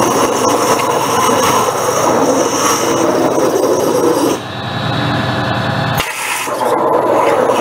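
Waterjet cutting head running through thin metal plate, a loud, steady hissing rush of the high-pressure jet. Its higher hiss drops out a little over four seconds in, then the sound changes abruptly about six seconds in and the full hiss comes back.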